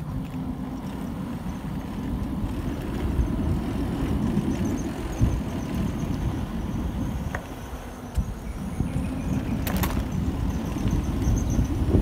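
Low wind and road rumble from a bicycle rolling along a paved lane, with faint high chirps above it and a sharp click about ten seconds in.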